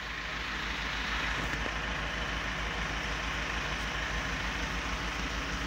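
Engine of a drain-jetting machine running steadily, with an even low throb.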